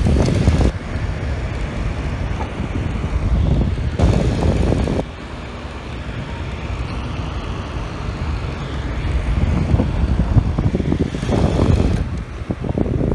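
Vornado air circulator fan running, its airflow blowing on the microphone as low wind noise. The noise swells in gusts three times: at the start, about four seconds in, and about eleven seconds in.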